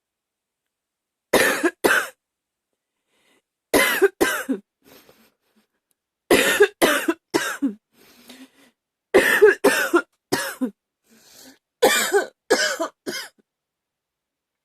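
A woman coughing hard, in five fits of two to four coughs each, with faint breaths between some of the fits.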